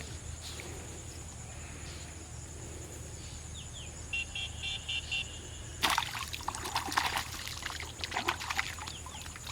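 Water splashing and dribbling in irregular bursts from about six seconds in, after a short run of quick high chirps.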